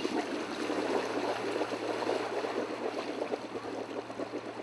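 Small harbour passenger boat's motor running with a low steady hum under loud churning, splashing water at the hull, easing off a little near the end.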